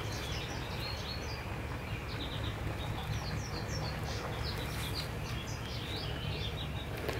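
Small songbirds chirping repeatedly in short, quick notes, over a steady low background hum.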